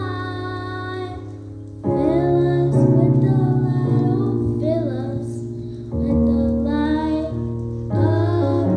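Worship music: sustained chords that change every few seconds, with a woman singing over them.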